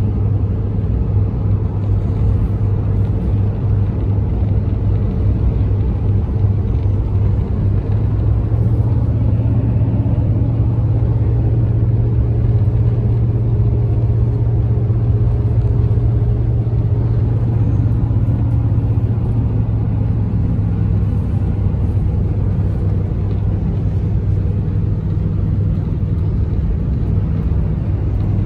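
Steady low drone of a moving car at highway speed, engine and tyre noise heard from inside the cabin.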